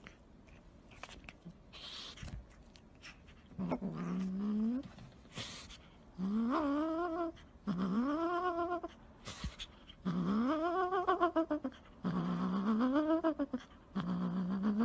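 Domestic cat meowing over and over: about six long, drawn-out calls, each rising and then falling in pitch, starting a few seconds in after some faint rustling.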